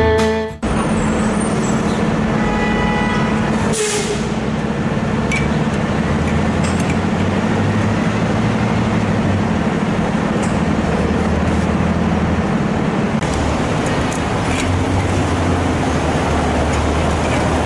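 Street traffic noise with a heavy vehicle's engine running close by as a steady low drone. There is a short burst of hiss about four seconds in.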